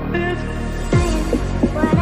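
Background electronic music: a melody, joined about a second in by a deep bass beat whose hits drop in pitch.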